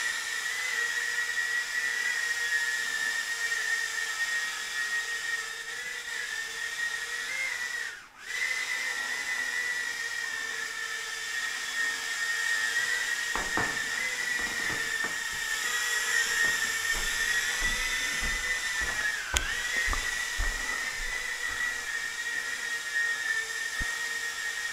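Eachine E011 micro quadcopter's four 7 mm coreless motors whining at a high, steady pitch in flight, the pitch wavering with throttle. The whine cuts out for a moment about eight seconds in and dips again about nineteen seconds in. A few low thumps come in between.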